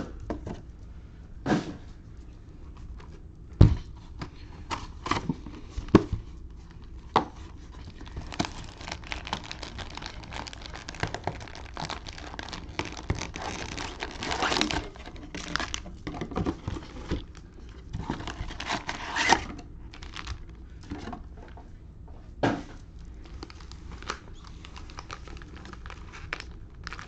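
Plastic cellophane wrappers of trading card packs crinkling as they are handled, with scattered sharp knocks of packs or boxes set down on a table. The crinkling is densest through the middle.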